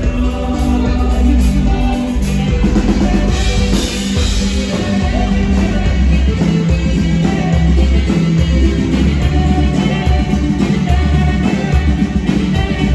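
Live band music: an instrumental passage with held lead notes over a steady bass line and drum kit, in the saxophone-led style of a Mexican regional sax group.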